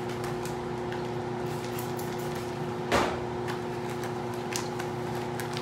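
Laminar flow hood blower running with a steady hum. About three seconds in there is a single sharp knock, followed by a few faint clicks.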